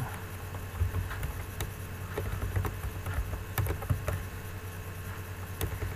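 Computer keyboard keys being typed, a few scattered, irregular clicks, over a low steady hum.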